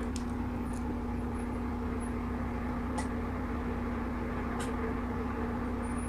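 A steady low hum with one constant tone, with a few faint short clicks over it.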